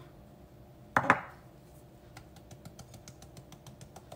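A single knock about a second in, then rapid light taps, about six a second, as a plastic sieve resting on a glass bowl is tapped by hand to sift flour and baking powder through.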